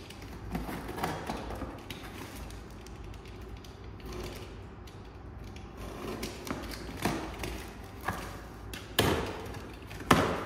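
Small cardboard box being handled and opened by hand: irregular rustling, scraping and creaking of the cardboard flaps, with two sharp knocks about nine and ten seconds in.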